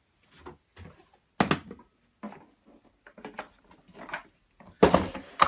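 Irregular knocks, clicks and clatter of hard plastic vacuum cleaner parts being handled and set down on a bench. One sharper knock comes about a second and a half in, and a quick cluster of knocks comes near the end.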